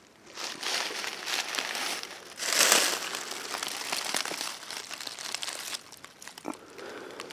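Dry leaves and brush rustling and crunching, with irregular crackles, loudest in a short burst a little over two seconds in.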